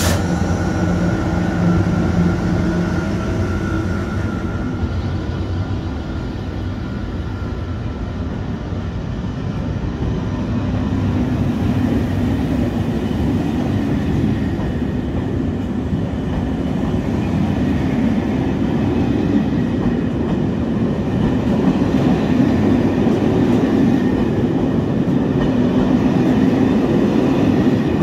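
SNCF TER train of Corail coaches hauled by BB 26000 electric locomotive 26151 rolling past, a steady rumble of wheels on rail with some clickety-clack, growing louder through the second half. A humming tone from the receding locomotive fades out in the first few seconds.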